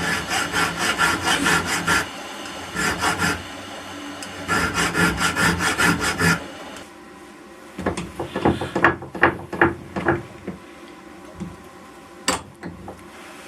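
Hand file stroking the end of a small steel shaft in quick rasping strokes, about four a second, in three runs, easing off the press fit for a ball bearing that was too tight. Then a flurry of sharp metallic clicks and knocks as the bearings are fitted back on.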